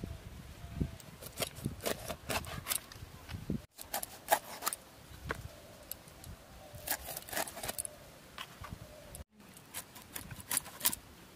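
A rohu being chopped into steaks on a boti, the fixed upright Bengali cutting blade: clusters of short, sharp cutting clicks as the blade goes through flesh and bone.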